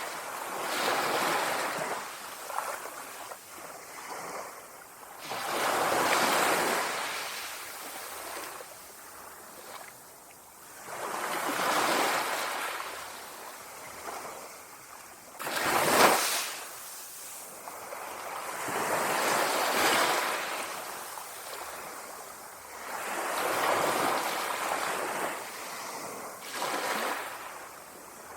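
Small sea waves lapping on a shore, each wash swelling and fading every four to six seconds, with one sharper, louder splash about halfway through.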